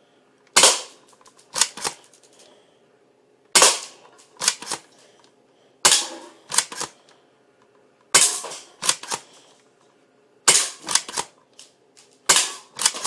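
Spring-powered airsoft pistol (Umarex Beretta M.12S) shooting repeatedly: about six sharp snaps roughly every two seconds. Each snap comes with quieter clacks from working the cocking action.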